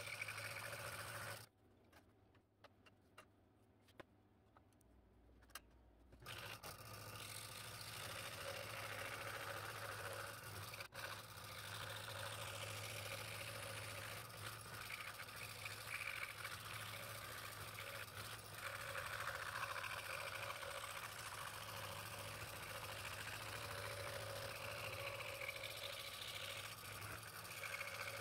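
Scroll saw running and cutting through a stack of layered hardwood boards, a steady motor hum under the blade's rasping. The sound drops away for about four seconds shortly after the start, then the sawing runs on steadily.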